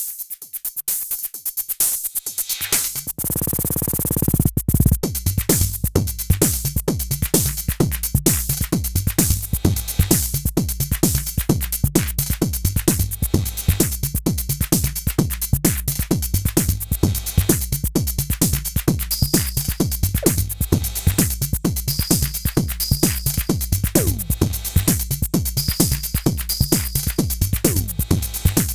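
Arturia DrumBrute analog drum machine playing a fast pattern. Only the hi-hats tick for the first few seconds, then a noise swell rises about three seconds in. The kick and the full pattern come in about four and a half seconds in, and a repeating higher pitched hit joins about halfway through.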